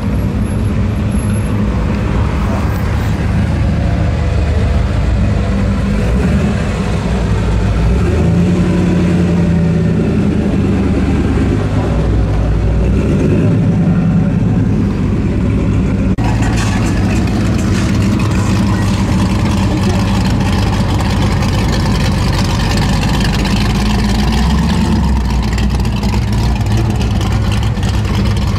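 Car engines running close by: a low rumble whose pitch shifts up and down now and then. The sound changes abruptly about halfway through.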